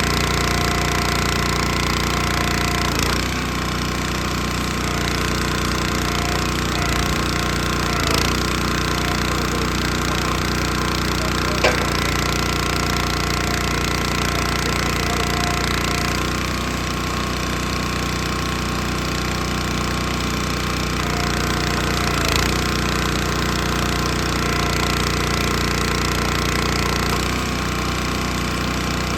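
Small gasoline engine of a log splitter running steadily, its note shifting slightly every few seconds, with an occasional sharp knock.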